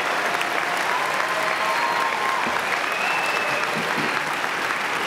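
Large audience applauding steadily, with a few drawn-out calls from the crowd over the clapping.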